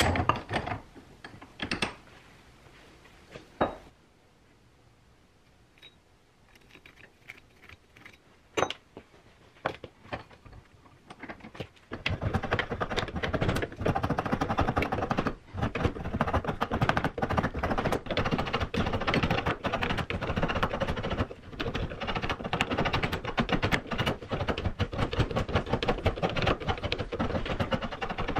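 A wooden hatchet-handle blank clamped in a bench vise being shaped with a hand rasp: fast, continuous scraping strokes that start about twelve seconds in. Before that there are only a few scattered knocks and clicks.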